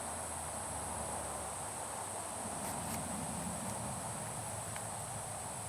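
Steady high-pitched chorus of insects, crickets, droning without a break.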